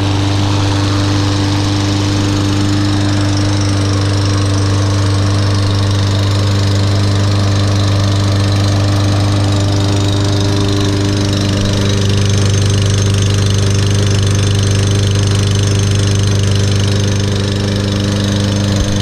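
Briggs & Stratton 625EX series single-cylinder engine on a Husqvarna all-wheel-drive push mower running steadily, just brought back to life with a spray of carburetor cleaner after sitting unused for over a year.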